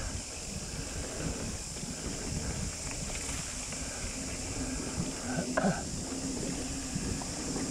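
Mountain bike tyres rolling over a dry dirt trail, with a low rumble of wind and frame vibration on the handlebar-mounted camera and a steady high hiss above it. A short sharper rattle or squeak comes about five and a half seconds in.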